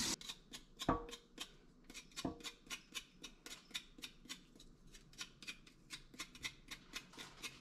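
A piece of ginger root being scraped to peel off its skin, in quick short strokes about five a second, with two louder knocks in the first few seconds.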